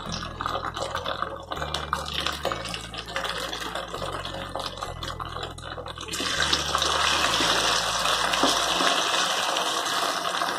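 Masala-coated anchovies sizzling and bubbling as they deep-fry in hot oil in a pan. The sizzle grows louder about six seconds in, as more freshly coated fish are dropped into the oil.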